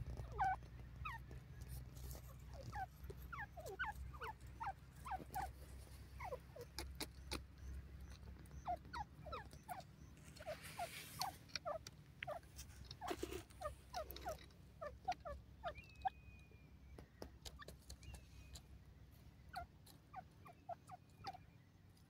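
Grey francolin giving many soft, short squeaky notes at an irregular pace while it feeds. Light clicks of scratching and pecking in dry soil run between them, with a brief rustle about eleven seconds in.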